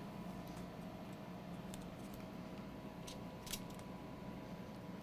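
Steady low electrical hum with a few light, sharp clicks from handling the laptop and its charging cable, the loudest about three and a half seconds in.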